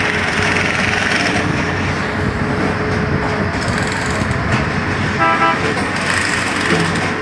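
Track-laying machine running at work, a steady dense mechanical noise, with one short high-pitched toot about five seconds in.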